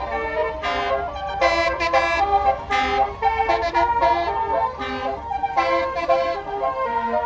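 A bus's 'basuri' musical air horn (telolet) playing a quick melody of short, stepped notes, over a low steady rumble.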